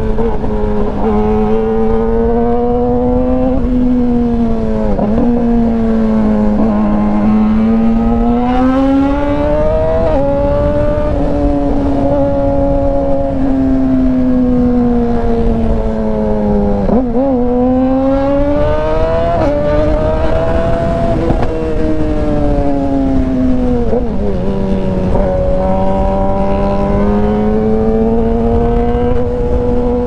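2019 Yamaha R6 599 cc inline-four engine through an Austin Racing exhaust, heard from the rider's seat while riding. The engine note rises and falls smoothly with the throttle, with several brief sharp dips in pitch, over low wind rumble.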